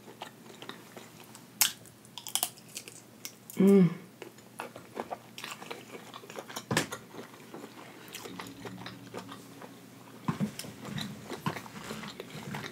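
Close-miked chewing of hibachi shrimp: wet mouth clicks and smacks, with a short hummed "mm" about four seconds in.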